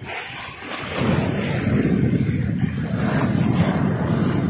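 Wind buffeting the microphone, mixed with choppy sea waves washing against the breakwater rocks; the noise swells about a second in and then holds steady.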